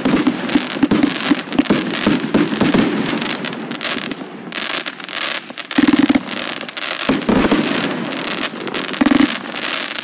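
Fireworks going off: a dense run of crackling pops and bangs, thinning briefly around the middle, with two louder bursts about six and nine seconds in.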